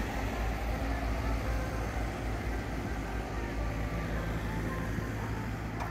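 Street traffic: a low steady rumble of motor vehicles, with one engine's hum growing clearer past the halfway point.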